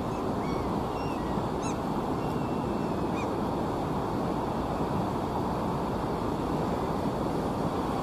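Steady rushing of a fast-flowing mountain river, with a few faint, short bird chirps over it in the first three seconds.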